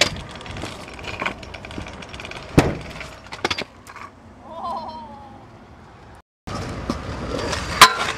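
Stunt scooter wheels rolling over pavement, broken by sharp clacks as the scooter hits the ground, about two and a half seconds in and again a second later. After a brief cut, the loudest clack comes near the end as the scooter lands on a metal rail to grind it.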